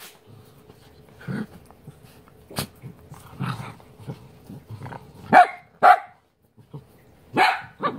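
Dachshunds play-fighting: a few low growls, then several sharp barks in the second half.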